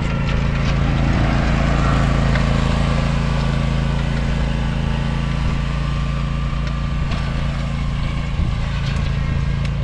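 John Deere Z530R zero-turn mower's engine running steadily at an even pitch while the mower is driven to plow snow.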